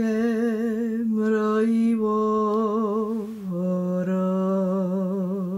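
A woman singing a traditional Romani song unaccompanied, slowly drawing out each syllable on long held notes with a wide vibrato; about three and a half seconds in the held note steps down to a lower pitch.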